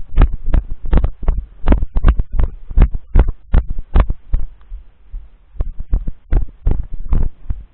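Footsteps of a person walking over leaf litter and grass, heard as heavy rhythmic thumps, about two to three a second, through a body-worn camera's microphone. The steps pause briefly about halfway, then go on.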